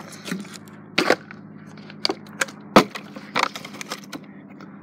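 Plastic water bottle being flipped and landing on a hard surface: a few sharp knocks spread out over several seconds, the loudest about halfway through.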